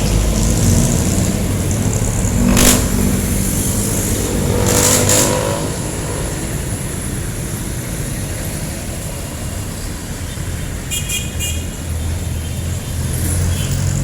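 Street traffic: jeepney and other vehicle engines running and passing with a steady low rumble, one revving up about five seconds in. There is a short sharp clack a little before that, and a brief pulsing high tone around eleven seconds.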